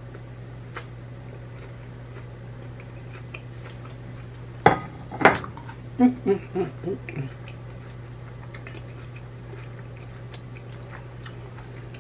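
Two sharp dishware clinks near the middle, followed by a quick run of short hummed "mm-mm" sounds of a woman enjoying a bite of cheeseburger, over a steady low hum.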